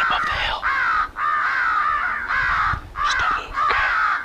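Crow call sounding a run of caws, one after another with short gaps between them, to draw crows in during a crow hunt.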